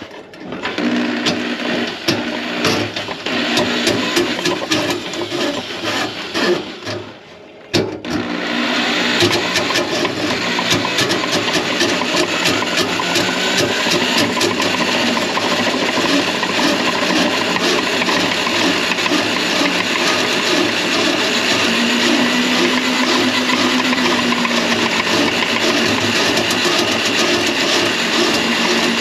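Electric drain-cleaning machine running steadily to clear a grease-clogged kitchen drain line. It drops out briefly a little before 8 seconds in, then starts again and runs on louder.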